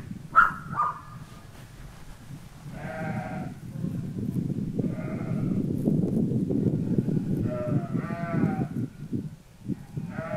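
An infant making short babbling sounds, four or five separate little vocalizations, over a low rumbling noise.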